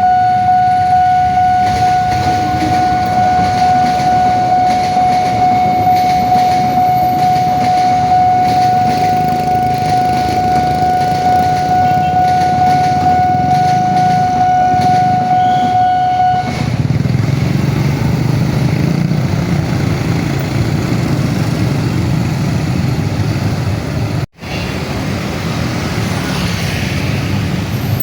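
Railway level-crossing warning alarm sounding one continuous high electronic tone, which cuts off about 16 seconds in. After it stops, low road-traffic engine noise grows louder.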